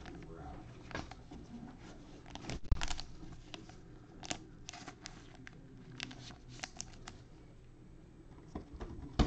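Gloved hands handling a trading card and a rigid clear plastic toploader: scattered plastic rustles and sharp clicks, the loudest cluster about three seconds in.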